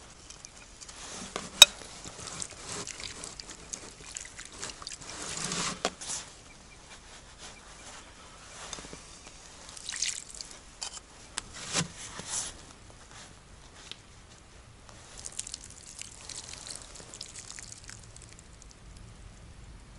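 Water trickling and splashing as potatoes are rinsed by hand in a plate with water from a plastic jug, the rinse water tipped out onto the ground in a few short spells. A single sharp click about a second and a half in.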